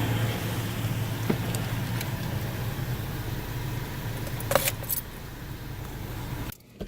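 2017 Toyota Tacoma engine idling with a steady low hum, with a couple of light clicks about four and a half seconds in; the sound cuts off suddenly near the end.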